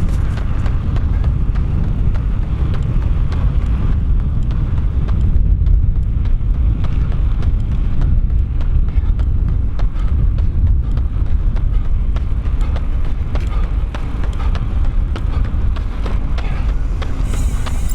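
Wind buffeting the microphone with a steady low rumble, and a run of light footfall taps from someone running.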